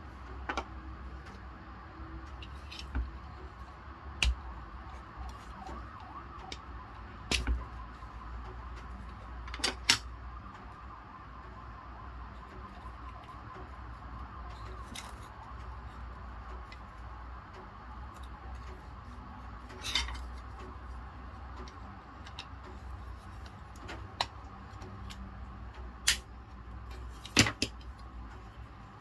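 Small hard-plastic tape dispenser being handled: scattered sharp clicks and knocks as it is opened, fitted with a roll of washi tape and knocked on the table, over a steady low hum.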